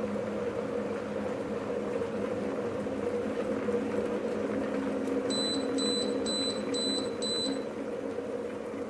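Electric kettle with the water rumbling near the boil. About five seconds in comes a click, then five short high beeps about half a second apart: the kettle signalling that it has finished heating.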